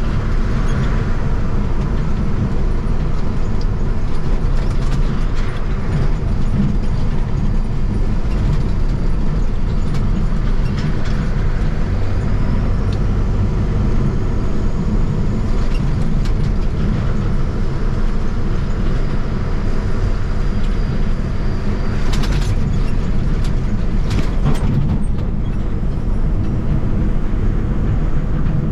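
A truck towing a trailer, heard while driving: a steady low engine and road rumble, with a few brief rattles along the way.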